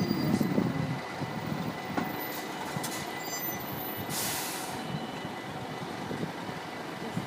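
Heavy vehicles rumbling at a railroad crossing, with a short hiss of air, like an air brake, about four seconds in.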